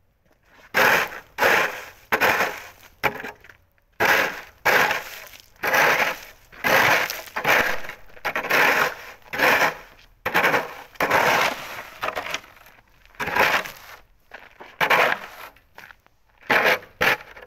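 Plastic snow shovel scraping and chipping at packed snow frozen onto the pavement, in repeated hard strokes about once a second with a few short pauses. The snow has stuck and frozen to the ground, so it comes away only with effort.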